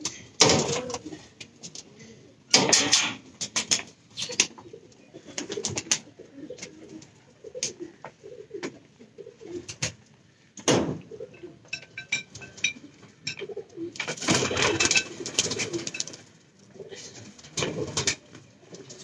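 Domestic pigeons cooing over and over, low-pitched, interrupted several times by short, loud clattering noises, the loudest about three seconds in and again about three-quarters of the way through.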